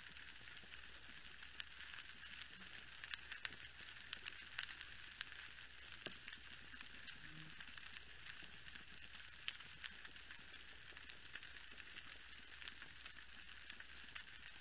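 Underwater coral-reef ambience: the steady crackle of snapping shrimp, a dense fizz of tiny clicks with a few louder pops scattered through it.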